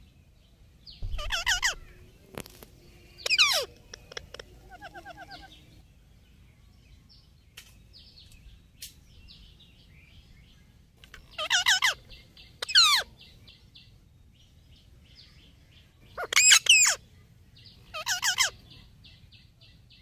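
Rose-ringed parakeets (Indian ringneck parrots) giving loud, high-pitched calls in short bursts, about six in all, some in quick pairs. Fainter runs of rapid ticking notes sound between the calls.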